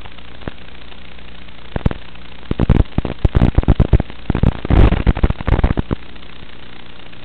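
Steady hum and hiss from an analog FPV video receiver's recording, broken from about two to six seconds in by bursts of loud, irregular crackling static: the radio link is dropping out as the video picture breaks up.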